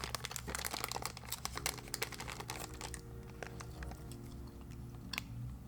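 Candy bag crinkling and rustling as it is handled, the crinkling dying away about three seconds in. Soft background music with held notes comes in partway through, and there is a single sharp click near the end.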